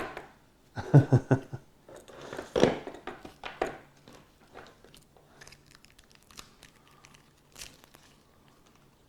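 Hands handling a small plastic webcam tripod and its packaging: crinkling and rustling with a run of clicks and knocks, loudest in the first few seconds, then fainter handling.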